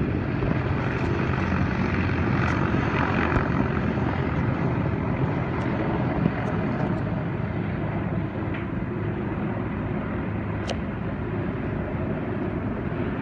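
CH-53E Super Stallion heavy-lift helicopters flying overhead: a steady, loud rotor chop over turbine noise. It grows slightly fainter in the second half as they pass.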